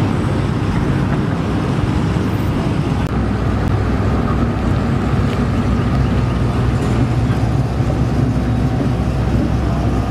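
A vehicle engine running steadily, deep and low, with no revving.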